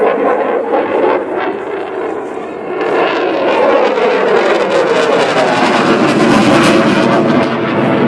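Eurofighter Typhoon's twin EJ200 turbofan engines running loud as the jet flies past, growing louder about three seconds in while the pitch of the engine noise sweeps steadily down as it goes by.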